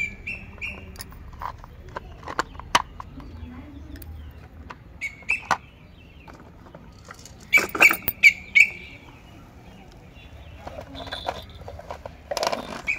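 Hard plastic toy vehicles being handled and set down: scattered clicks and knocks of plastic on plastic, with short high squeaks in small groups, the busiest cluster about two thirds of the way through, and a brief rustle near the end.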